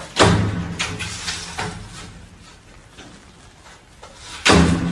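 Sliding window rattling and banging in its frame as a cat climbs and paws at the glass: a loud bang just after the start and another near the end, with lighter knocks in between.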